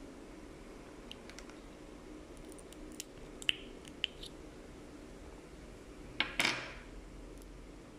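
Faint small metal clicks and scratches of a tool working under the edge of a Rado Diastar's steel caseback, then a sharper snap with brief ringing a little over six seconds in as the caseback pops off.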